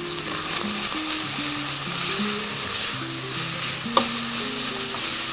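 Minced meat frying in a steel saucepan, sizzling steadily as it is stirred with a wooden spoon. A single sharp knock of the spoon against the pot comes about four seconds in.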